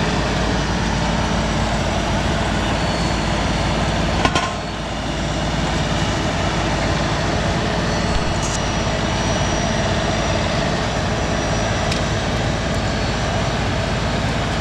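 LS tractor's diesel engine running steadily as the tractor drives, with a single knock about four seconds in.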